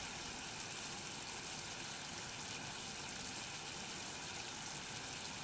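Sugar and corn-syrup candy syrup boiling hard in a pan, a steady, even bubbling hiss. The syrup is still cooking and has not yet reached the candy stage.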